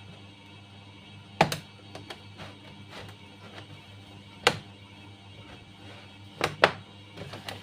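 Plastic clips of a laptop's bottom cover snapping loose as it is pried open: four sharp clicks, one about a second and a half in, one around the middle, and two in quick succession near the end.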